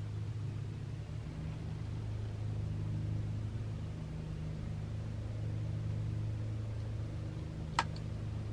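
Weed eater engines running steadily outside, a continuous engine drone, with a single sharp click near the end.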